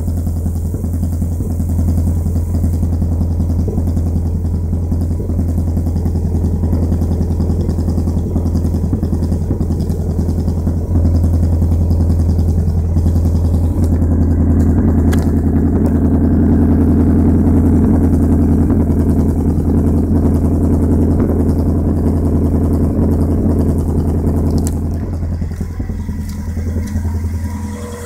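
Vauxhall Corsa SRi's 1.4 16-valve four-cylinder X14XE engine, fed by Yamaha R6 motorcycle carburettors, running near idle with a misfire, which the owner traced to a broken HT lead and a lean mixture. The engine note rises in level from about a third of the way in, then falls back near the end.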